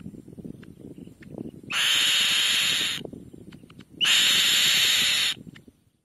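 Black-winged kite at the nest giving two long, rasping screeches, each just over a second and about two seconds apart, over a faint low rustling.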